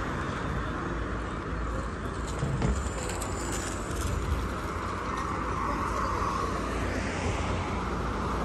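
Steady traffic noise, a low rumble of passing vehicles.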